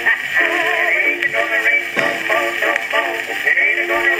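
Male singing played from a 1920s Columbia 78 rpm shellac record on a hand-cranked acoustic phonograph fitted with a loud steel needle. The sound is thin and horn-like, with vibrato on the held notes, over faint surface hiss.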